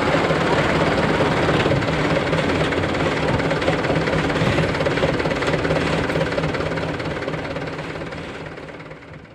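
Diesel engine of a loaded dump truck idling steadily close by, with a low, even rumble and clatter. It fades out near the end.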